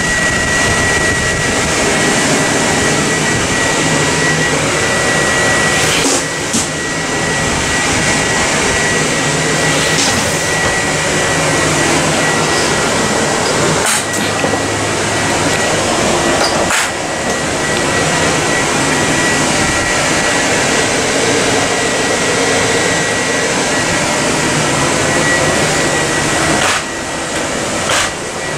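A loud, steady drone of running machinery, with a thin high whine held throughout. A few brief knocks break through at intervals.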